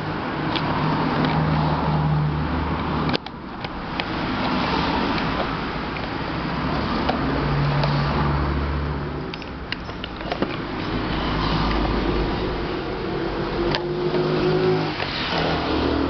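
Passing road traffic: engine and tyre noise that swells and fades every few seconds as vehicles go by. A few sharp plastic clicks come from the fan's motor cover being handled, the loudest about three seconds in.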